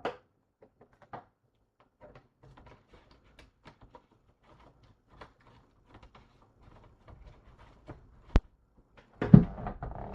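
Handling of boxed action-figure packaging: faint scattered rustles and light taps, a sharp click a little after eight seconds in, then a louder knock near the end as a package is handled or set down.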